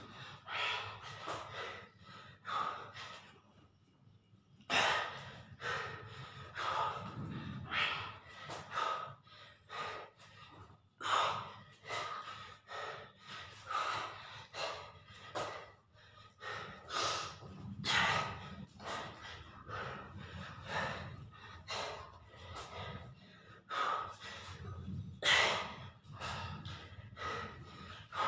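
A man's hard, rhythmic breathing from the exertion of push-ups: short, forceful breaths and gasps about one to two a second, with a brief lull about four seconds in.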